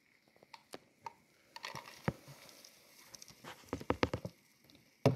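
Live Dubia roaches tumbling into a plastic deli cup as they are tipped out of a plastic container: scattered light clicks at first, then a denser rustle of clicks and taps on the plastic, sharpest about four seconds in.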